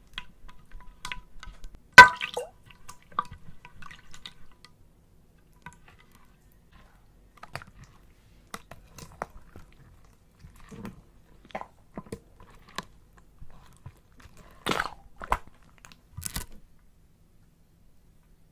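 Slime being handled and squished, making scattered short sticky clicks and pops with pauses between them; the sharpest pop comes about two seconds in.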